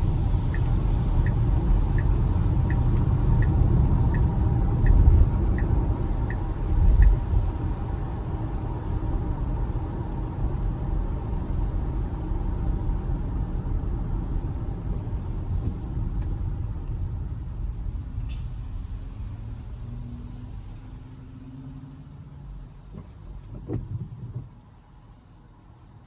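Road and tyre noise inside a Tesla Model Y's cabin on a rain-wet road, a steady low rumble with hiss. For the first seven seconds the turn signal ticks about one and a half times a second. The noise then fades gradually as the car slows and drops away suddenly near the end.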